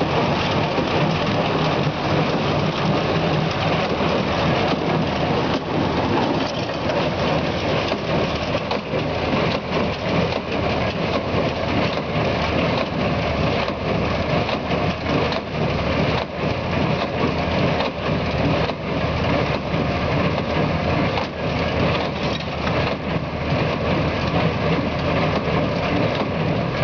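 New Holland baler working in dry sugarcane trash, drawn by a running tractor: a dense, steady crunching clatter of trash being picked up and crushed, over a low engine drone.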